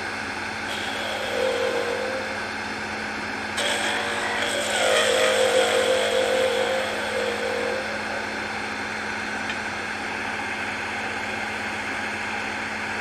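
Wood lathe running steadily, with a turning tool cutting the spinning wood to round over the end of a small light-bulb ornament; the cutting grows louder and rougher from about four to eight seconds in, then eases off to the lathe's hum.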